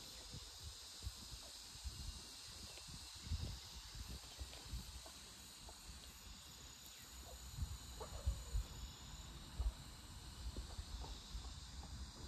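Faint, steady high chirring of insects in garden vegetation, with scattered low thumps on the microphone.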